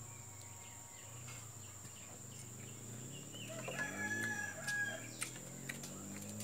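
A rooster crowing once, about three and a half seconds in, a call of about a second and a half ending on a held note.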